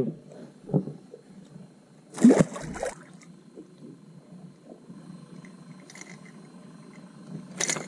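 A short, loud splash of water about two seconds in, from a bass at the lake surface, then a faint steady background. A few sharp clatters come near the end.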